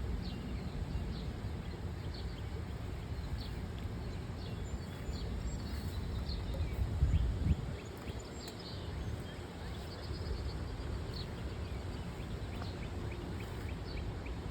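Wind rumbling on the microphone, with a louder swell about halfway through, while small birds chirp again and again in short high notes.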